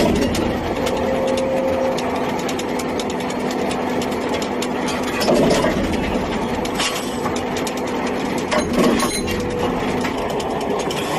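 Hydraulic CNC busbar cutting and punching machine running: a steady hum from the hydraulic drive, broken by several sharp clunks of the punching and cutting strokes.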